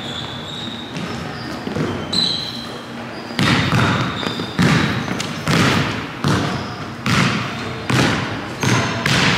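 Basketball dribbled on a hardwood gym floor. From about three seconds in, the bounces come steadily, roughly one every 0.8 seconds. Short high sneaker squeaks are heard near the start and again about two seconds in.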